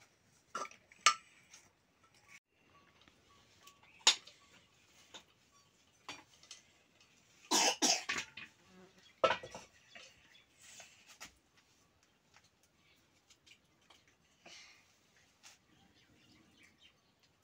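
Metal cookware being handled: scattered clinks and knocks of pots, lids and a spoon, with a louder, noisier clatter about eight seconds in.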